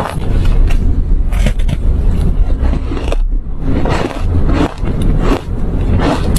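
Ice being bitten and crunched close to the microphone, in a loud series of crisp crunches about every half second, with a short pause just after three seconds.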